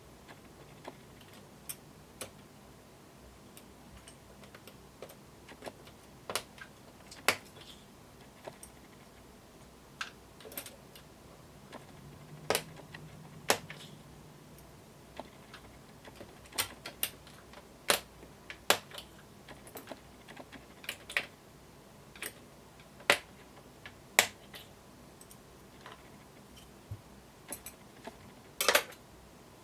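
Scattered, irregular sharp plastic clicks and snaps from Hi-Tek 725 'Space Invader' keyboard switches and their keycaps being handled, a few louder than the rest.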